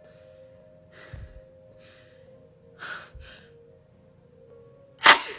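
A person's quick, catching breaths and gasps as a sneeze builds, then one sharp, loud sneeze about five seconds in.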